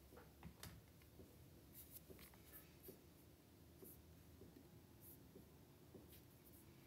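Near silence: room tone with faint, scattered small clicks and scratches at irregular intervals.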